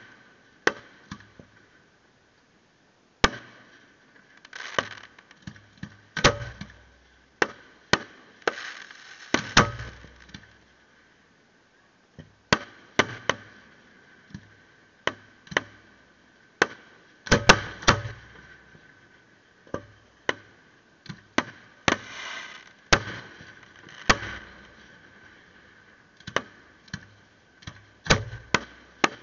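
Fireworks display: aerial shells bursting in a series of sharp bangs at irregular intervals, some in quick clusters, each with a short echoing tail. The densest, loudest cluster comes a little past the middle.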